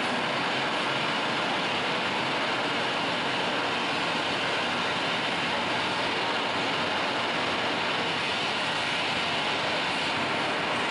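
Dense, steady wall of electronic noise from an experimental noise performance, played through small amplifiers from floor-mounted electronics, with no beat, melody or pauses.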